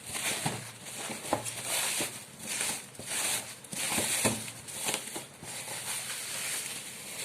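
Packaging being handled: irregular rustling and crinkling with scattered light clicks and taps.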